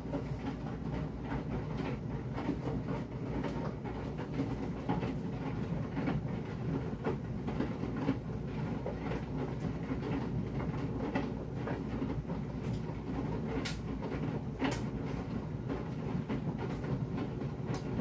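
Electrolux 9 kg tumble dryer running on its denim programme: a steady hum from the turning drum, a continuous patter of small knocks from the tumbling load, and a few sharper clicks.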